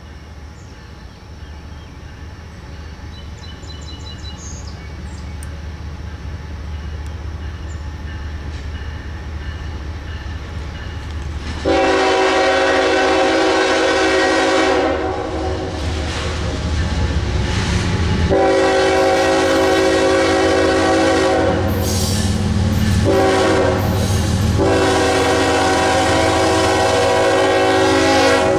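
Diesel freight locomotive approaching, its low engine rumble growing louder, then sounding its multi-chime air horn in three long blasts, the last still going at the end.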